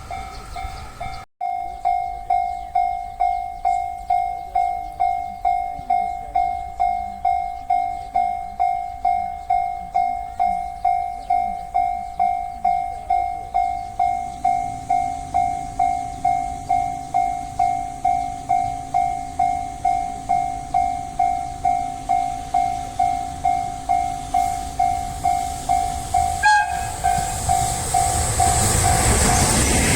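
Japanese railway level-crossing electronic warning bell ringing steadily, just under two strikes a second. A low hum joins about halfway through, and near the end the noise of an approaching train builds up.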